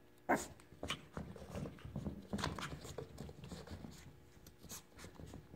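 Maltese puppies scampering and tussling on carpet: irregular soft scuffles and clicks.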